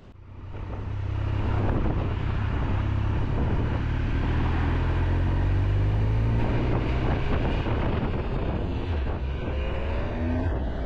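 Motorcycle engine running at road speed with the rush of wind, heard from the rider's seat, fading in over the first second or so; its note rises slightly near the end as the bike picks up speed.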